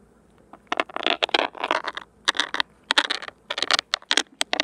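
An irregular run of short scraping, crackling rustles from handling noise as something rubs and knocks close to a handheld recording device's microphone.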